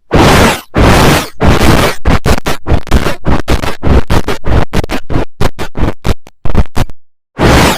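Loud, heavily distorted noise chopped into rapid stuttering bursts, several a second, breaking off into a brief silence near the end.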